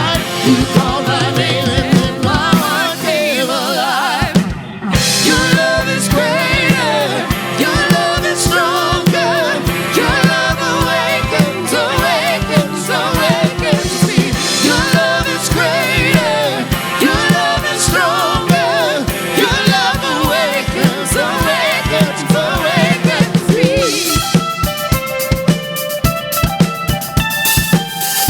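Contemporary worship band playing and singing: lead and backing vocals over a drum kit keeping a steady beat, with a brief drop in the sound just after four seconds in.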